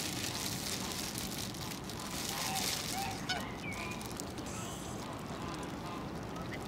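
Bar-headed geese giving a few short, faint honking calls over a steady outdoor hiss, with a single sharp click about three seconds in.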